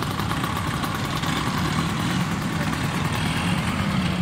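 Many Vespa scooter engines running at low speed together as a slow column rides past, making a steady mixed engine drone.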